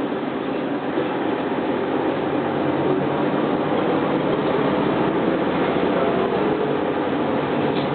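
New Flyer D40LF transit bus heard from inside the passenger cabin while under way: its Detroit Diesel Series 50 four-cylinder diesel and Allison B400R automatic transmission drone steadily under road noise, getting a little louder after about a second.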